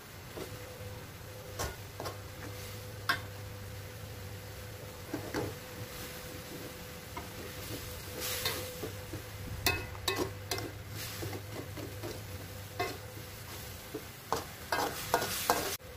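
A spatula scraping and stirring a thick ground chilli, shallot and garlic paste in an aluminium wok, with a soft sizzle as the paste is dry-fried in oil until the oil separates out. The scrapes and taps come more often in the second half.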